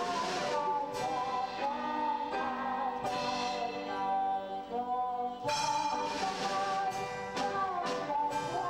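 Small live band playing a slow waltz: a sustained, gliding melody line over regularly struck accompanying notes.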